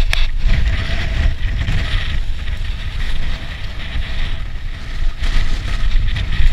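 Wind buffeting the action camera's microphone on a mountain bike in motion, mixed with the rumble of the tyres rolling over stone trail. A sharp knock sounds just after the start.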